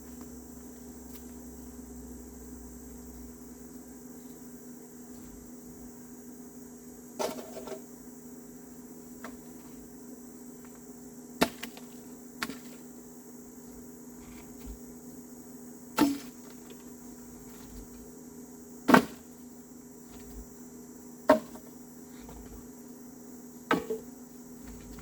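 Pieces of firewood being tossed onto a bonfire pile, about seven sharp wooden knocks spaced a few seconds apart, over a steady faint hum.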